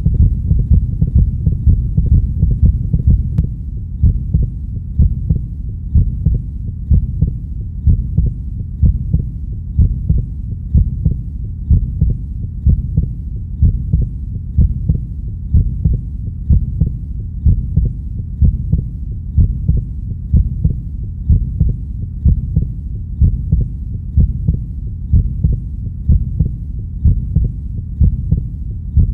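Recorded heartbeat: steady low double thumps (lub-dub), about one beat a second, over a constant low rumble.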